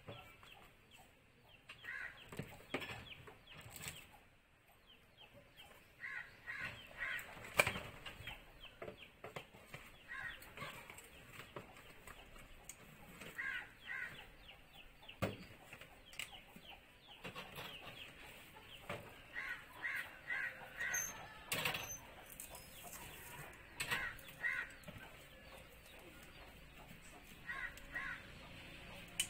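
Short bird calls repeating in twos and threes every couple of seconds, under occasional knocks and clatter from a wheelchair's metal frame being handled as a person shifts from a scooter seat into it; the loudest knock comes about seven and a half seconds in.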